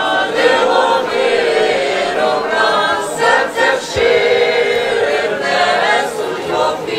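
A choir singing a slow carol-style song about the three kings bringing gold, from a Ukrainian vertep nativity play, with long held notes.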